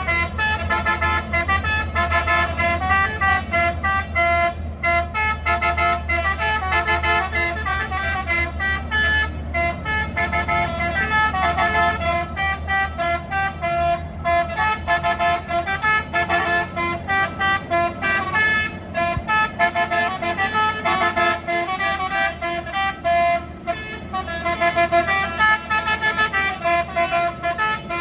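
Truck's multi-tone telolet air horn playing a rapid, almost unbroken melody of changing notes, with only brief pauses between phrases. A low engine rumble runs underneath and drops away about 21 seconds in.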